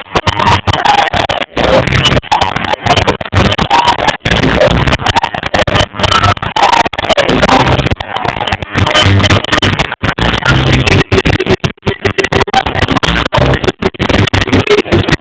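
Live reggae band music recorded through a phone microphone, overloaded and distorted, cutting out in many brief gaps.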